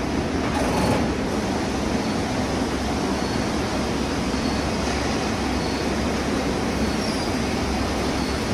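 Steady machinery noise of a Tetra Pak carton line's end-of-line pallet conveyor and wrapping equipment: an even hum and hiss with no separate clanks or knocks.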